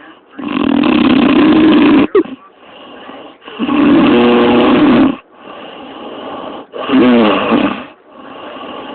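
A woman snoring heavily: three loud snores, each over a second long, coming every two to three seconds, with quieter breaths between.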